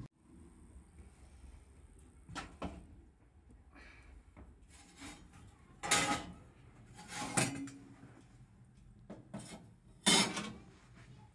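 Metal clanks and clatters from handling a small sheet-metal stove and its aluminium pots: about six sharp knocks, the loudest about six and ten seconds in, as the stove-top lid is moved off the fire hole.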